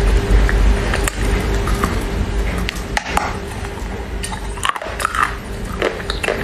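Crunching and cracking from biting and chewing a chunk of wet Chinese loess clay, with sharp cracks scattered through it, over a steady low hum.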